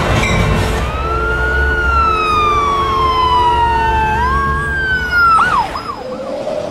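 Sci-fi siren sound effect from the show's soundtrack: a wailing tone that rises, then slides slowly down and back up, with fainter glides above it. Near the end it breaks into quick warbling dips. A low rumble runs underneath.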